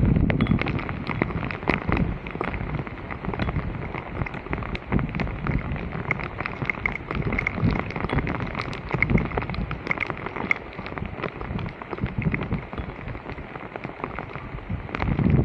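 Water splashing and pattering with many small clicks and irregular low thumps.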